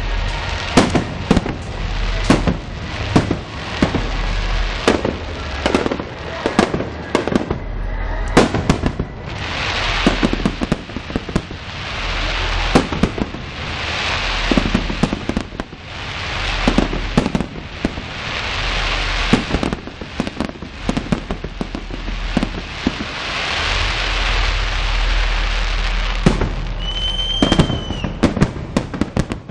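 Aerial fireworks display: a rapid series of sharp bangs from bursting shells, with stretches of dense crackling from crackle effects, and a short whistling tone near the end.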